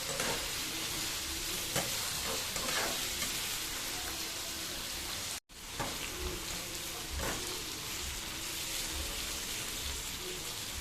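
Cubed potatoes frying in oil in a pan with a steady sizzle, and a spatula stirring and scraping now and then. The sound drops out for an instant about halfway.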